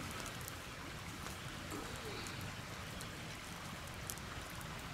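Wood campfire burning, scattered sharp crackles and pops over a steady hiss.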